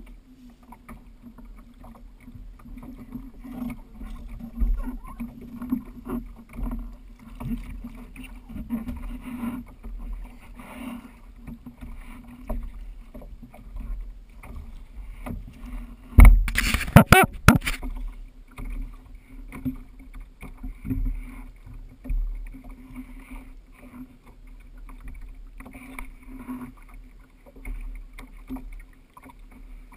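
Steady low rumble of wind and water around a fishing kayak on open water, with faint small knocks. About halfway through, a loud burst of noise lasts about a second and a half.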